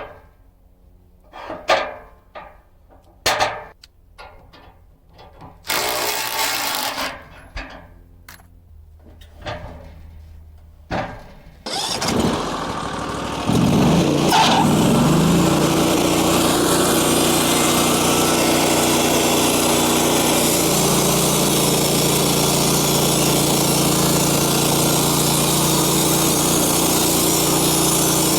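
Several knocks and clunks from handling wood at the sawmill. About twelve seconds in, the sawmill's engine starts up, grows louder a second or so later and then runs steadily.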